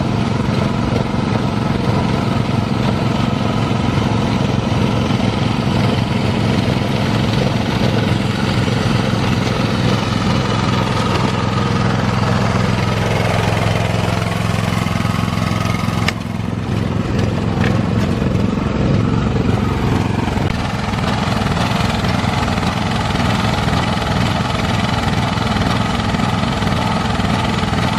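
Rice transplanter's small engine running steadily, with a brief drop in level and a sharp click about sixteen seconds in.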